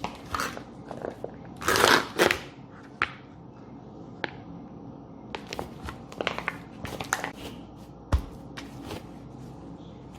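Handling noises: scattered clicks and taps with crinkling, loudest in a cluster about two seconds in, and a single low thud near eight seconds.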